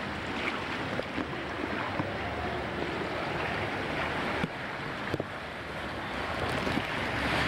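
Rushing white water of a river rapids ride, heard from inside a raft: a steady wash of water noise with a few light knocks.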